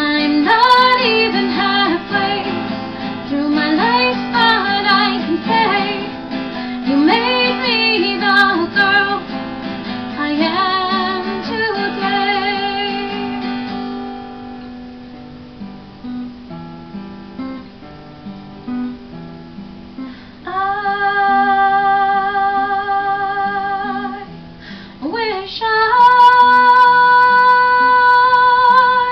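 A woman singing with her own acoustic guitar accompaniment. Midway the voice drops out for several seconds, leaving the guitar playing quietly alone; then the singing returns with long held notes.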